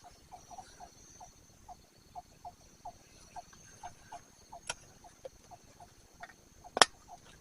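Insects drone steadily and high-pitched, over a run of short low chirps repeating about twice a second. A sharp click comes nearly five seconds in, and a louder one near the end.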